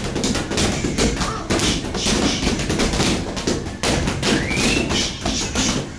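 Boxing sparring: padded boxing gloves striking gloves, arms and headgear, and feet stepping on the ring floor, giving a busy, irregular run of thuds and taps.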